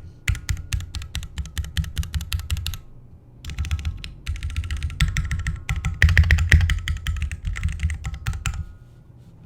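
Typing on a Keychron Q1 mechanical keyboard with stock Gateron Phantom Brown tactile switches: quick runs of keystroke clacks with a short pause about three seconds in. The keystrokes are loudest around six seconds in, and the typing stops near the end.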